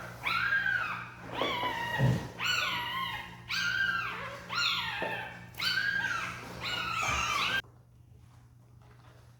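Newborn puppies crying: a run of high-pitched cries, each rising then falling, about one a second, cutting off abruptly near the end.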